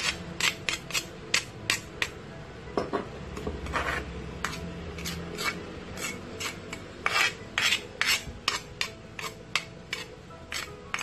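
A metal spoon scraping ground spice paste out of a stone mortar, in short rasping strokes with sharp clicks and clinks, a few per second, as the paste is knocked off into a steel pot.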